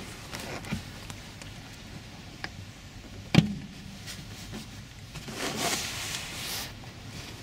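Rear seat bottom cushion of a Scion tC being pulled up by hand. There is a single sharp snap about three and a half seconds in as it pops free. Then its fabric and foam rustle and scrape for about a second and a half as it is lifted out.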